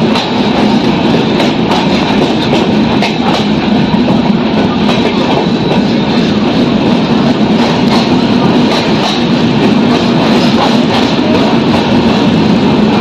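Passenger express train running fast through a station, heard from aboard a coach: a steady rumble and rush of wheels on the rails, with occasional clicks as the wheels pass over rail joints.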